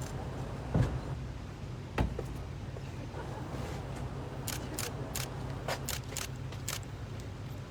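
Steady low hum of an idling vehicle engine, with two thumps in the first two seconds and a quick run of about ten sharp clicks in the second half.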